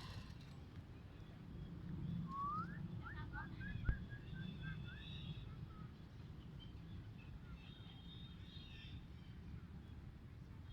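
Faint bird calls: a rising whistle about two seconds in, followed by a quick run of short notes, and fainter high chirping later. A single sharp click just before four seconds.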